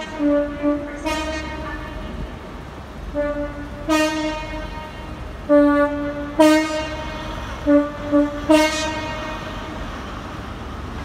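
Train's two-tone horn sounded in a long series of blasts, alternating high and low notes, about nine blasts over nine seconds, over a steady low rumble of trains standing at the platform.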